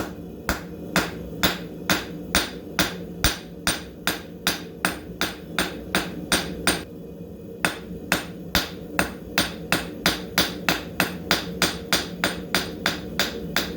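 Hammer blows on hot 1/4-inch round steel stock on an anvil, flattening the tips so they flare open, at about three blows a second with a short pause about seven seconds in. A steady low hum runs underneath.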